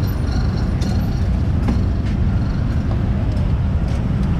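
Steady road traffic noise from passing cars and motorbikes, a low, even hum of engines and tyres.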